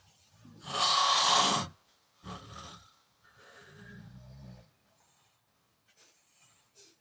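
A pig squeals harshly for about a second, then grunts in low, rough snorts.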